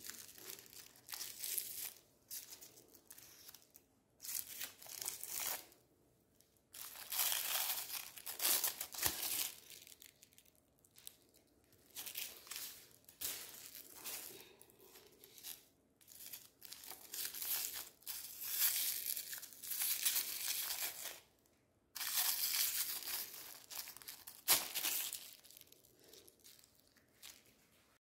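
Clear plastic wrappers crinkling and tearing in repeated bursts with short pauses, pulled by hand off umbrella-shaped chocolate bars.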